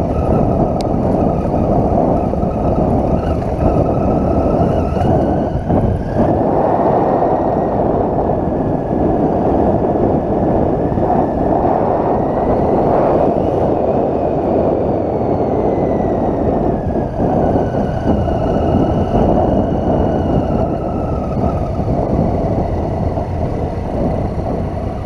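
Triumph Tiger 800's three-cylinder engine running on a gravel track. Its pitch climbs about six seconds in and eases back down over the second half, under a steady, loud rush of wind and tyre noise.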